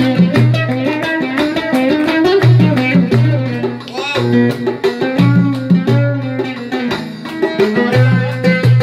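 Loud live music: a plucked string instrument over a repeating bass line, with a steady percussion beat.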